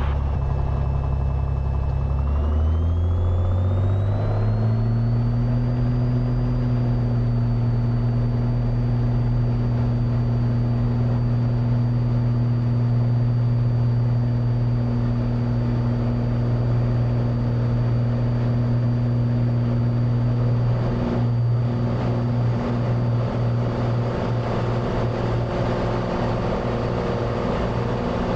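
Cessna 182's six-cylinder piston engine and propeller going to full power for the takeoff run: the drone rises in pitch over the first few seconds, then holds steady as the plane accelerates down the runway and climbs away.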